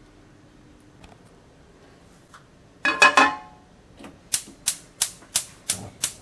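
A metal frying pan set down on a gas hob's grate with a ringing clatter, then the Whirlpool hob's spark igniter clicking six times, about three clicks a second, as the burner knob is held in.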